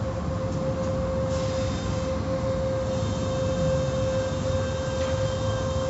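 Automatic car wash tunnel machinery running behind glass: a steady mechanical drone of brushes and water spray with a constant whine at one pitch.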